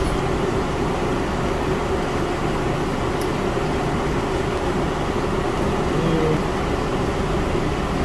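A fan running steadily with an even rushing hum, and a faint click about three seconds in.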